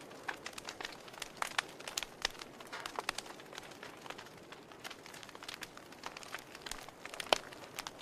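Wood fire burning in a fireplace, crackling with irregular pops and snaps over a soft hiss, one sharper pop near the end.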